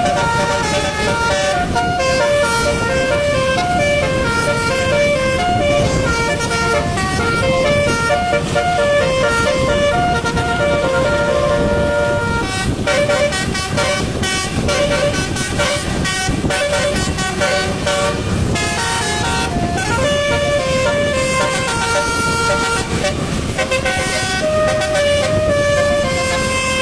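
Bus basuri, a musical multi-tone air horn, playing a melody of held notes that step up and down in pitch, over a steady rushing noise.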